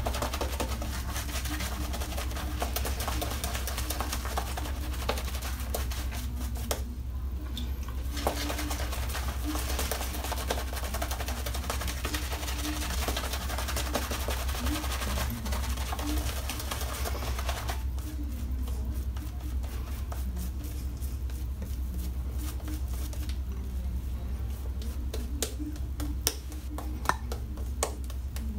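Boar-bristle shaving brush working shaving-soap lather on the face: a wet, crackling scrub of bristles on lathered skin, quieter for a moment about seven seconds in and again from about eighteen to twenty-three seconds.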